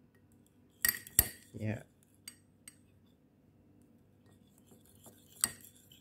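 Metal fork clinking and scraping against a ceramic ramekin while whisking a runny butter, sugar and egg-yolk batter: two sharp clinks about a second in, another near the end, with light taps in between.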